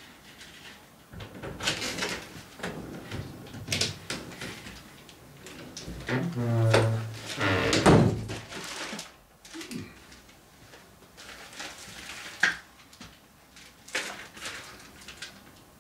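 A door being opened and shut and a plastic courier satchel rustling as it is carried and handled, with scattered knocks and clicks. A louder, short pitched sound comes about six seconds in.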